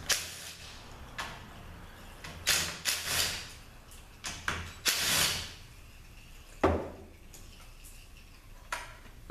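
Cordless drill spinning bolts out of a Ford 4R100 transmission's valve-body plate in short bursts, with metal parts clinking and a sharp metallic clank about two-thirds of the way through.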